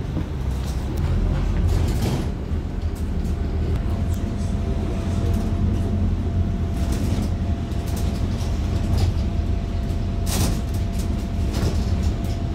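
Inside a Wright StreetLite single-deck bus: a steady low engine and road rumble, with small rattles and clicks from the fittings. A faint steady high tone runs through the middle, and a sharper click comes about ten seconds in.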